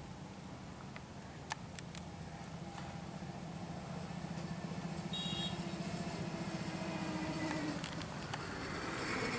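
An engine running steadily with a low pulsing rumble, growing gradually louder, with a few faint clicks about a second and a half in.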